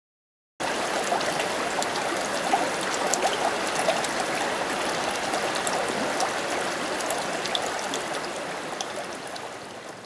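Shallow stream rushing and babbling over rocks, starting suddenly about half a second in, with scattered small splashing ticks, and fading down near the end.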